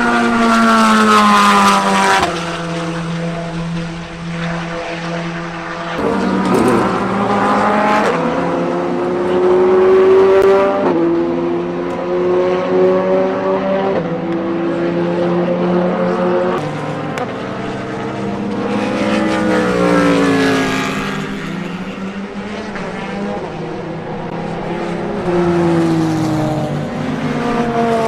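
Corvette C8.R race car's 5.5-litre flat-plane-crank V8 running hard on track. Its pitch drops in steps at the start, then climbs and falls again and again through gear changes, with a second engine note overlapping at times.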